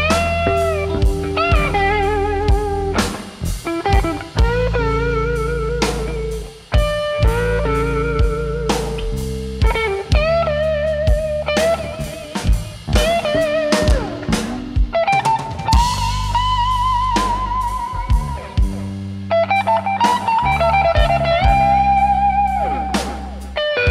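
Blues band playing live: an electric guitar solo of held, wavering notes and bent notes over electric bass and a drum kit.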